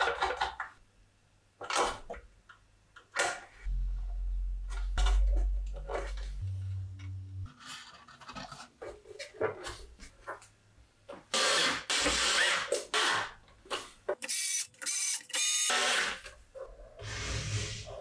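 Hand assembly of a sheet-metal equipment case: scattered clicks, knocks and scraping as parts are fitted and screwed together, with a few longer rasping bursts. From about four seconds in, a low hum lasts about three seconds.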